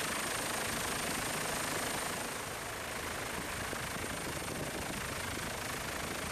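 Steady engine and rotor noise of a helicopter, with a thin high whine held above it.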